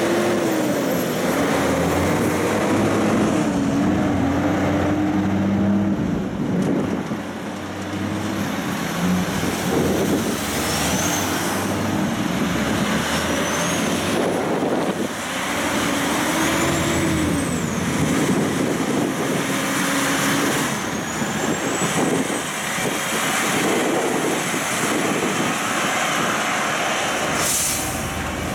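Heavy trucks' diesel engines running as they pull through a turn and drive past one after another, the engine note rising and falling as they accelerate and change gear. Faint high rising whines come through several times in the middle, and a short hiss sounds near the end.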